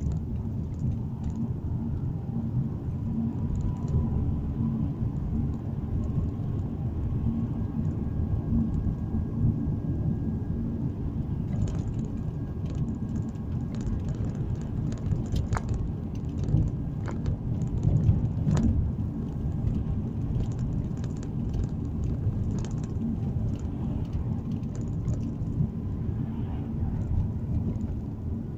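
Steady low rumble of a car's engine and tyres on the road, heard from inside the cabin while driving, with a few light clicks and knocks around the middle.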